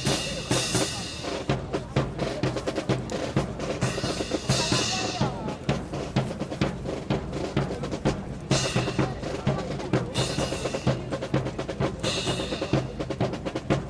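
Drum-led band music with a steady, fast beat of snare and bass drum and repeated cymbal crashes.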